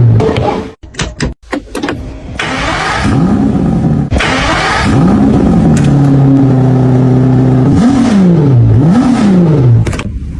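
Aston Martin engine revving repeatedly, its pitch climbing and falling several times, with a few short breaks in the first second and a half and the revs held steady for a couple of seconds in the middle.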